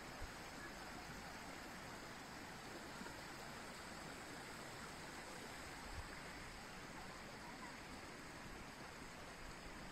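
Faint, steady rushing of a small mountain stream, with a couple of soft low thumps, one near the start and one about six seconds in.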